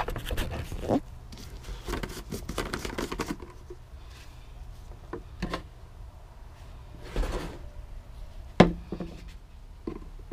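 Plastic containers being handled: a 4-litre plastic jug of gear oil and a plastic pump bottle knocked and rattled about, with a quick run of clicks about two seconds in and one sharp knock late on.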